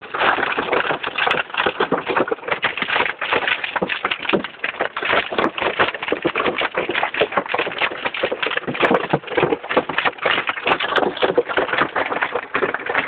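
Hailstones pelting a car's roof and windshield, heard from inside the cabin: a dense, irregular rattle of hard impacts.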